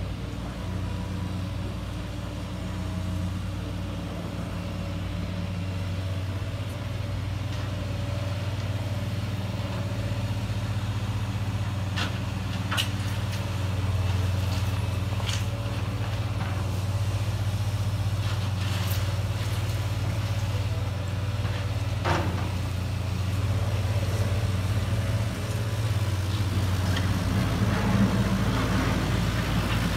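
Steady engine-like drone of a running vehicle, even throughout, with a few sharp clicks and knocks around the middle.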